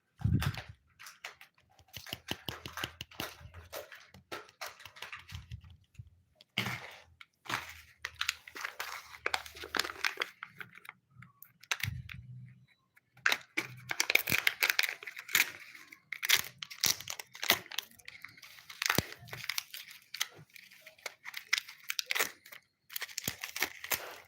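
Kinder Joy egg packaging being handled close up: the wrapper and plastic crinkle, crackle and tear in bursts of sharp clicks, with short pauses between bursts.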